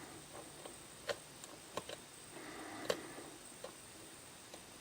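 Faint, scattered small metallic clicks, about five, as a hook pick and tension wrench work the pin stack of a Lockwood KIK cylinder lock.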